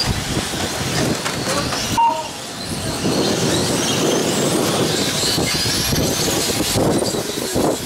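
Several 1/8-scale brushless electric RC race cars running on an asphalt track. Their motors give a high whine that rises and falls in pitch as the cars speed up and slow down.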